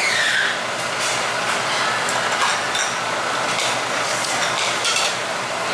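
Steady rushing restaurant background noise, like a ventilation fan, with a few light clinks of metal utensils and dishes scattered through it.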